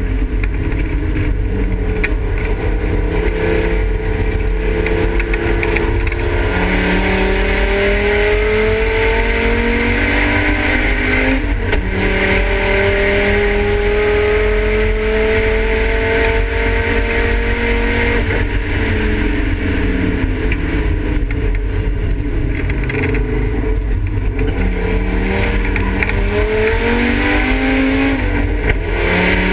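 Volvo 850 race car's five-cylinder engine heard from inside the stripped cabin, pulling hard with the pitch climbing through the revs and dropping at each gear change, several times over, along with road and wind noise.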